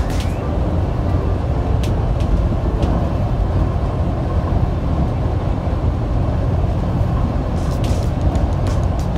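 Steady low road and engine rumble inside a bus cruising at highway speed, with a few light clicks or rattles, most of them near the end.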